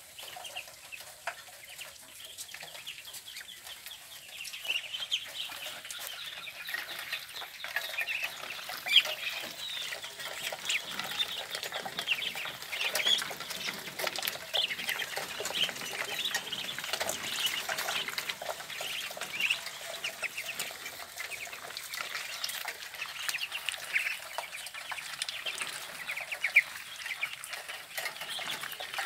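A flock of young Muscovy ducks peeping: many short, high calls overlapping without a break. A sharp tap stands out about nine seconds in.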